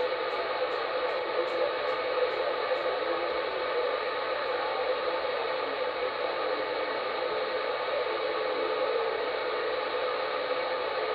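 CB radio receiver tuned to channel 38 (27.385 MHz), its speaker giving a steady hiss of band static with no station coming through.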